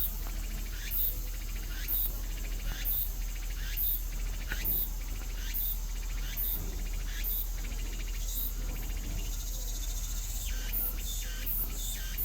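An insect, cricket-like, chirping outdoors in short, very high-pitched pulses repeated about once or twice a second.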